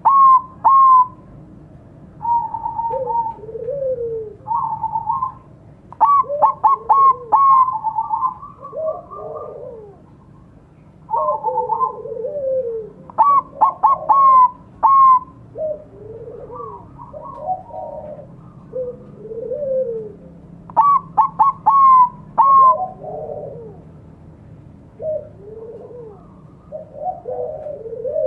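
Zebra dove (Bangkok-type perkutut) singing: a loud run of quick, clipped coos comes back about every seven seconds, with softer, lower coos in between.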